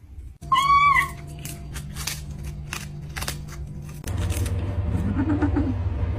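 A kitten gives one short meow, then sharp crunching clicks for a few seconds as kittens bite and chew on a dried fish held out by hand.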